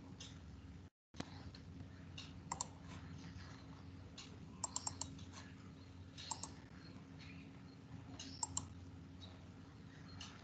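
Scattered computer keyboard and mouse clicks: a few single ones, then a quick run of four about halfway, over a faint steady low hum. The audio cuts out completely for a moment about a second in.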